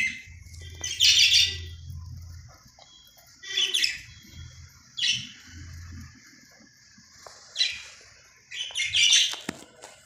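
Pet budgerigars chirping in short, high bursts, about six times, with quieter chatter in between.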